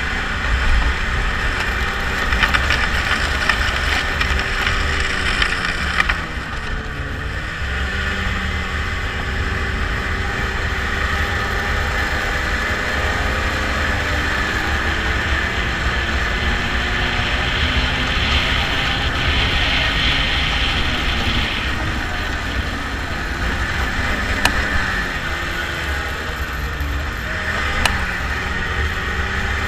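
A motor vehicle driving, its engine running with a heavy low rumble and wind or road noise over it; the engine pitch dips and rises a few times, around a quarter of the way in and again near the end.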